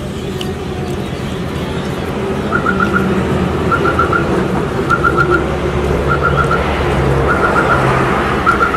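Street traffic rumble with an electronic alarm chirping: quick groups of four high chirps, repeating about once every second, starting a couple of seconds in.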